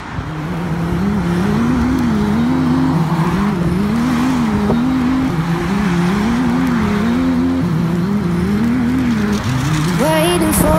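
Background music: the intro of a pop song, a short low melodic riff repeating about every two seconds over a steady wash, with a singing voice coming in near the end.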